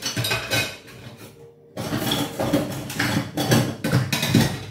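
A metal utensil clinking and scraping against glass kitchenware, in a string of short strokes with a brief pause about a second and a half in.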